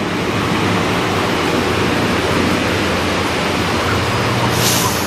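Loud, steady roar of chicken-slaughterhouse machinery with a low, even motor hum underneath. A brief hiss about four and a half seconds in.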